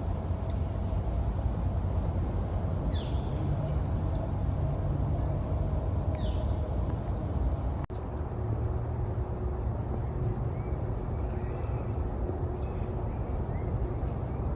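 Outdoor ambience: a steady high insect drone over a low rumble, with two short falling bird chirps in the first half and a few faint chirps later. The sound cuts abruptly about halfway through.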